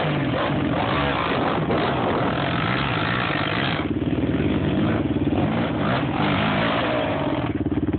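Sport quad (ATV) engine revving and accelerating, its pitch rising and falling with the throttle.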